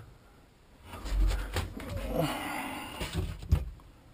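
Handling noise from the camera being moved: low thumps and rustling starting about a second in, with a few sharp knocks near the end.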